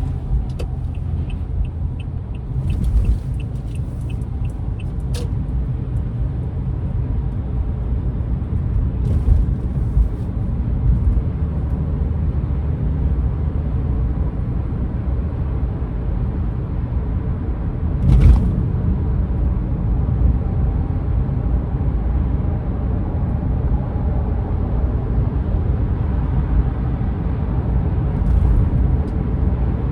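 Car driving in traffic: a steady low rumble of engine and road noise. A few seconds near the start brings a run of about ten quick, even ticks, and a single sharp thump comes about midway.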